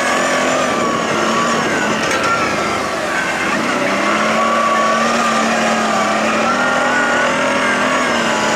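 CF Moto X8 820 quad's V-twin engine running under way. Its pitch dips about three seconds in, then rises again.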